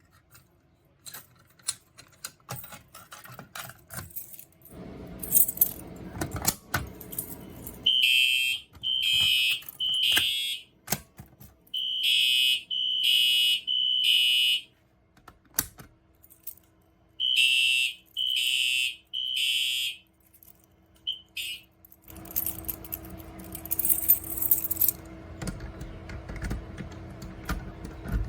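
Fire alarm horn sounding the temporal-3 evacuation pattern: three short high-pitched blasts, a pause, repeated three times from about eight seconds in, then a brief chirp. Scattered clicks and rattles run around it.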